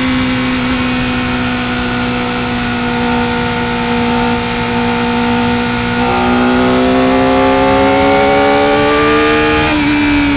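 Kawasaki Ninja ZX-4R's 399 cc inline-four running at high revs under way, holding a steady pitch, then climbing slowly in the second half before a quick step and a falling pitch near the end, as the throttle is eased or a gear is changed.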